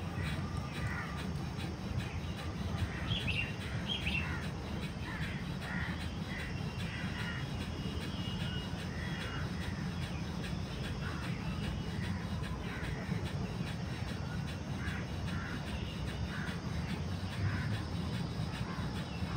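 Crows cawing at intervals over a steady low rumble.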